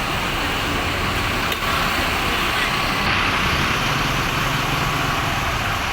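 Intercity bus's diesel engine running steadily, a low even drone under a steady hiss of road and traffic noise.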